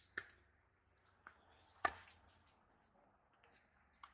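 Sharp pops of a tennis ball off racket strings and the hard court, loudest about two seconds in, with a few fainter clicks between.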